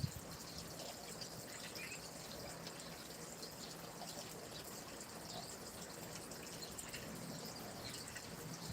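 Small stream trickling steadily, with light splashing and dripping sounds.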